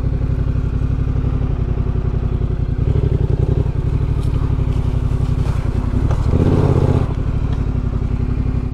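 Yamaha Ténéré 700's parallel-twin engine running at low revs while the bike is ridden slowly off-road, with brief throttle openings about three seconds in and again about six seconds in.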